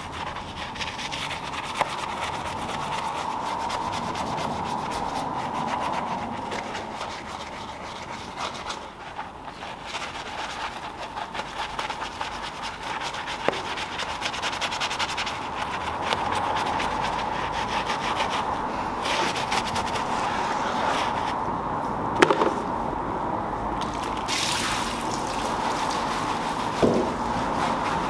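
Detailing brush scrubbing a foam-covered alloy wheel and tyre: steady wet rubbing, with a couple of sharp knocks in the second half.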